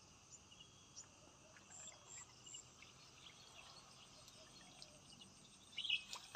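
Faint outdoor ambience with insects chirping steadily, a few small ticks, and a short sharper sound near the end.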